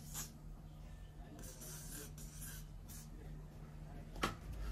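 Aerosol hairspray hissing in short bursts as it is sprayed at the front hairline: a brief spray at the start and a longer one of about a second and a half. A single sharp knock near the end.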